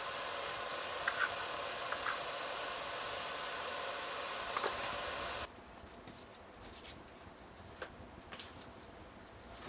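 A steady hiss from the pot cooking over the wood fire, with a few light clicks. About five and a half seconds in it cuts abruptly to the quieter, irregular crackling and popping of the burning firewood.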